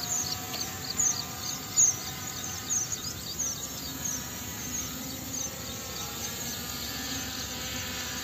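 P18 Pro quadcopter drone's brushless motors and propellers humming steadily in flight overhead. Many short, high chirps come several times a second over the first half and thin out later, the loudest about two seconds in.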